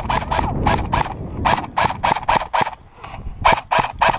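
Small dog yapping rapidly, about four or five sharp barks a second, with a short pause partway through.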